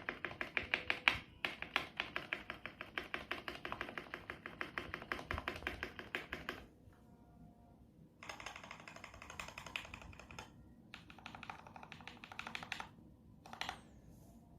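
Mechanical keyboard being typed on rapidly, a fast run of key clicks for about six seconds, a short pause, then a few shorter runs. Its stabilizers are freshly lubed with bicycle grease, and the spring noise is mostly gone.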